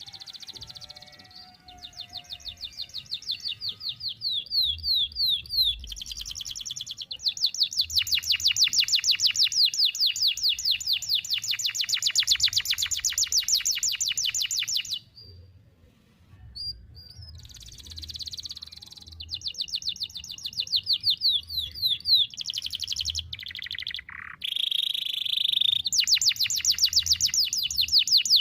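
Domestic canary singing long, rapid trills of repeated high notes, one trill held for about seven seconds; the song breaks off briefly about halfway, then resumes with more long trills.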